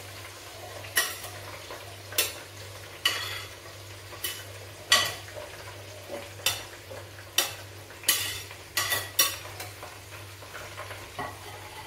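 A metal utensil tapping and scraping chopped vegetables off a ceramic plate into a pressure cooker and against its pot: about a dozen sharp clinks with a short metallic ring, roughly one a second. Underneath, a low steady sizzle of vegetables frying in hot oil in the cooker.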